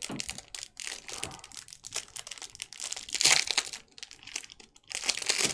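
Crinkling of plastic wrapping and card sleeves being handled, irregular crackles with a louder burst about three seconds in and again near the end.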